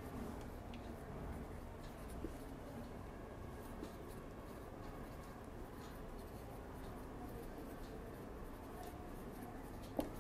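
Marker pen writing on a whiteboard: faint scratching strokes over a steady low room hum, with one sharp tap near the end.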